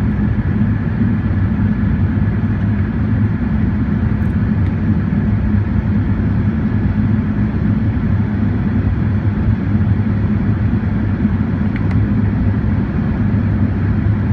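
Steady low rumble of an Airbus A380's Rolls-Royce Trent 900 engines and rushing airflow, heard from inside the cabin at a window seat over the wing during the climb after take-off.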